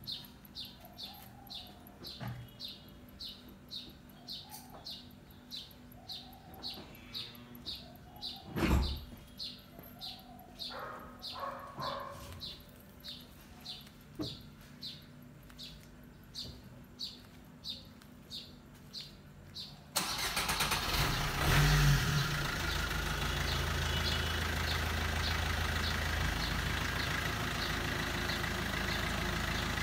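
A bird chirps over and over, about twice a second, with one loud thump near the 9-second mark. About two-thirds of the way through, a Suzuki Swift's 1.3-litre four-cylinder DDiS diesel engine cranks briefly, catches and settles into a steady idle.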